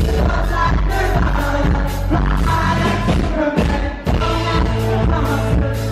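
Live band music: a singer's amplified vocals over a steady beat of about two drum hits a second, dropping out briefly about four seconds in.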